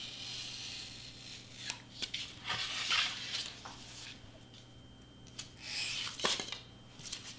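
Hobby knife blade cutting through foam board, a scratchy hiss, with several short scrapes and knocks as the board is shifted on the cutting mat.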